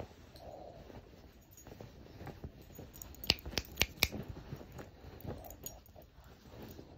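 A small dog shuffling and nosing about in a blanket on a bed, with soft rustling of the bedding and a quick run of four or five sharp clicks a little past the middle.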